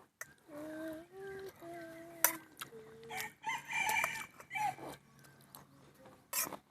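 A rooster crowing: one long call that steps in pitch, followed by shorter calls, with a sharp click a little over two seconds in.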